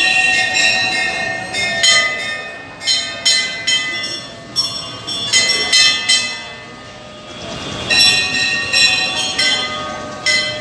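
Hanging brass temple bell rung over and over, irregular strikes each leaving a long bright ring. The ringing fades away past the middle and starts again about eight seconds in.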